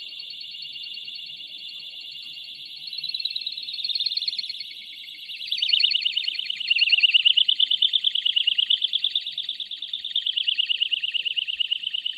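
Electronic alarm siren of a homemade motion-sensor animal scarer, meant to chase nilgai from fields. It sounds as a high, rapidly pulsing warble that gets louder about five and a half seconds in and then wavers up and down in pitch.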